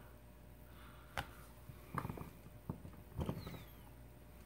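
Faint, scattered clicks and taps of plastic pry tools and an opening pick working at the edge of an LG G5 phone, four or five small clicks spread over a few seconds, while the display is still held down and not lifting.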